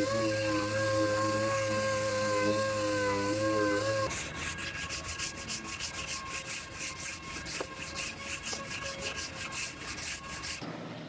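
A steady whine of several held tones for about four seconds, then rhythmic rubbing strokes on metal, about four or five a second, that stop suddenly near the end: hand sanding or filing of the repaired body panel.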